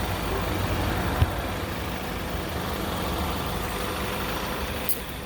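Car engine idling steadily, with one sharp knock about a second in and a faint click near the end.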